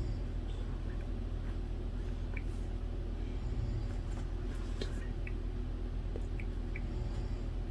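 A person snoring softly nearby, a low rumble that swells about every three and a half seconds, with faint scattered small ticks and clicks over it.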